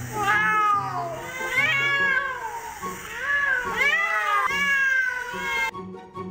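A cat meowing over and over, about four drawn-out meows that each rise and then fall in pitch, with quiet background music underneath. The meowing cuts off suddenly near the end, where the music takes over.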